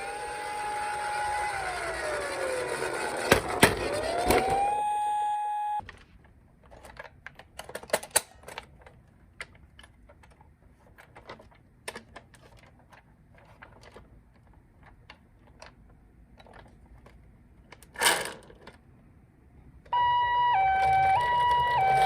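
Toy ambulances' electronic sirens: a wail sweeping down and back up over a noisy rattle cuts off suddenly after about six seconds. Scattered light clicks and taps follow. Near the end a two-tone "pee-po" Japanese ambulance siren starts up, alternating steadily between a higher and a lower note.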